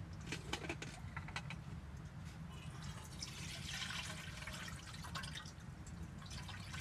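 Pieces of cut potato dropped into a pot of water, a series of small plops and splashes with a burst of splashing about three to five seconds in.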